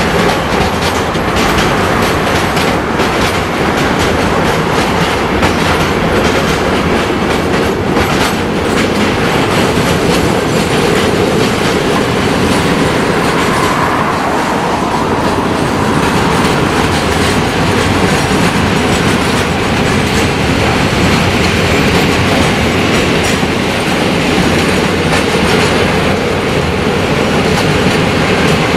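Freight train of container flat wagons rolling past, a steady rumble of wheels with rapid clicks and clacks over the rail joints, thickest in the first ten seconds or so.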